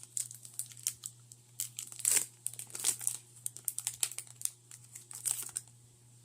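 Foil wrapper of a Pokémon booster pack crinkling and tearing as it is handled and opened: a run of irregular sharp crackles.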